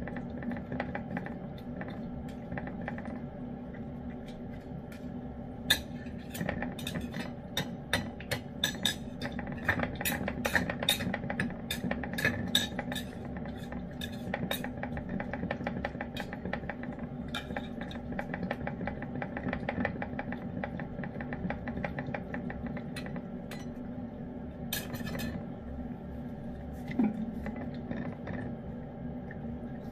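Lynx point Siamese cat eating wet pâté from a ceramic dish: many quick wet clicks of licking and chewing, densest in the first half, with light clinks of a utensil or teeth against the dish, over a steady low hum.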